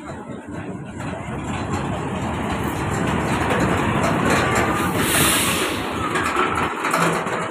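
Heavy articulated truck with a long loaded trailer driving past close by: the engine and tyre noise builds, is loudest as the cab goes past, and eases a little as the trailer rolls by, with a brief hiss about five seconds in.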